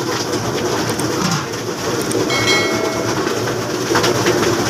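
Steady, loud market din with no clear voices, and a short high-pitched tone a little past halfway.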